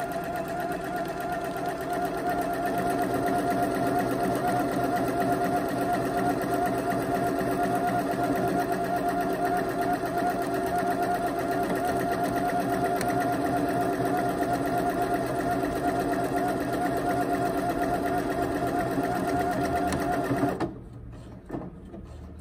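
Janome 1050DC computerized sewing machine stitching a one-step automatic buttonhole with the R buttonhole foot. Its motor speeds up at the start, runs steadily with a constant whine, and stops abruptly near the end when the buttonhole is done.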